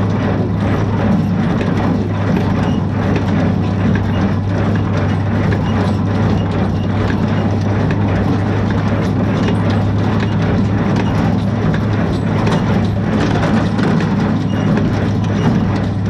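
Small square baler running in the field behind a tractor, baling hay: a steady engine drone under the baler's repeated knocking as it packs and pushes out bales.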